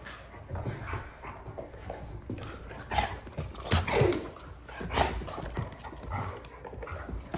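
A chocolate Labrador and a pug play-fighting over a toy: dog noises and scuffling, with a few loud sharp sounds about three, four and five seconds in.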